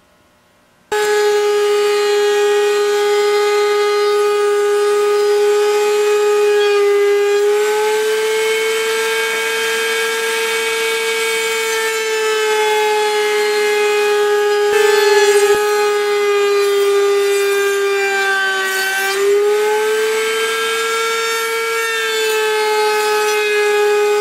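Router in a router table running at full speed with a steady high whine, its bit cutting eastern red cedar spindles. It starts about a second in, and its pitch dips slightly now and then as it cuts.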